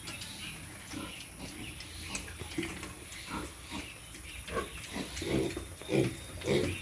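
Pigs grunting: many short separate grunts, sparse at first and coming more often and louder in the second half.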